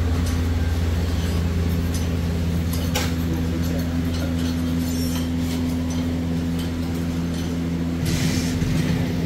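A steady low mechanical hum with a few sharp metallic clicks and clinks, one about three seconds in and a cluster near the end.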